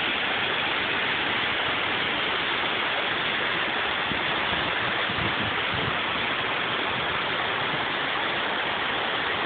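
Waterfall: water falling and rushing in a steady, even roar of white noise.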